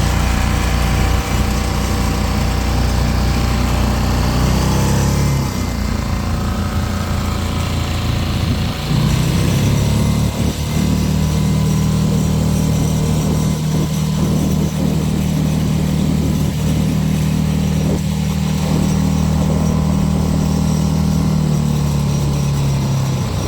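Mercury 6 hp single-cylinder four-stroke outboard motor running steadily. Its note drops about five seconds in and rises again around ten seconds in as the throttle changes.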